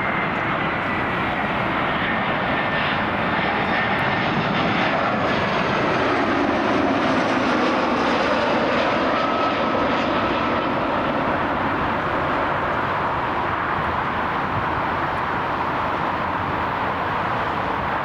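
Jet airliner's engines running as it passes. The noise swells a little toward the middle and eases off, with a thin whine that falls slightly in pitch.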